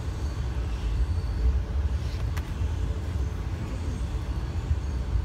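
Amtrak Northeast Regional passenger train running, heard from inside the coach: a steady low rumble, with one sharp click about two and a half seconds in.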